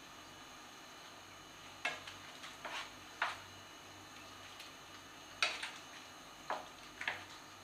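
Spatula knocking and scraping against a frying pan while stirring spinach leaves being softened, in scattered light strokes.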